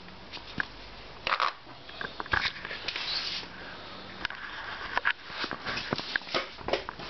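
Domestic cat eating wet food from a bowl: irregular wet chewing and smacking clicks, with sniffing.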